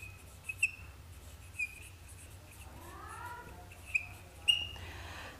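Marker squeaking on a whiteboard while a word is written: about five short, high squeaks between quieter strokes.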